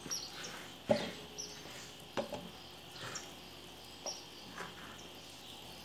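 A few faint sharp knocks from handling the dough and pan, with short high chirps in between.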